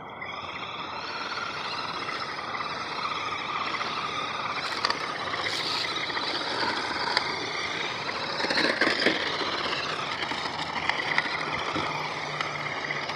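A toy car's electric motor running, its whine wavering up and down in pitch as it drives, with a few short louder moments around the middle.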